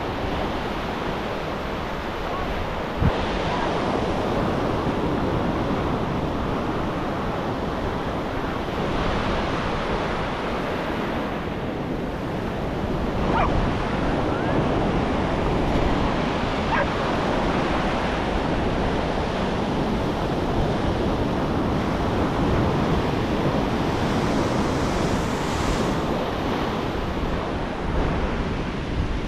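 Ocean surf breaking and washing up a sandy beach in a steady rush, with wind buffeting the microphone. A single sharp tap stands out about three seconds in.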